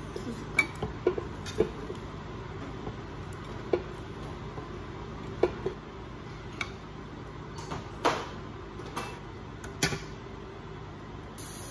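Food being served onto a ceramic plate: a series of scattered sharp clinks and clicks of a utensil against the plate as pieces of air-fried pork and onion are set down, over a steady low hum.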